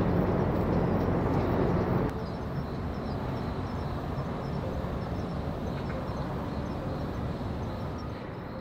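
Steady outdoor background rumble with a faint low hum. It drops to a quieter level at a cut about two seconds in.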